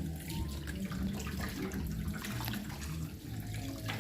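Running water splashing as a gutted catfish is rinsed under it, with small scattered knocks from handling.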